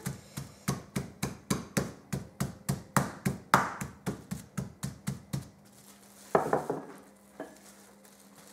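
Wooden rolling pin pounding a chicken breast flat through plastic wrap on a chopping board, in place of a meat mallet: a steady run of about three thuds a second that stops about five and a half seconds in. About a second later comes a short crinkle of the plastic wrap being peeled off the meat.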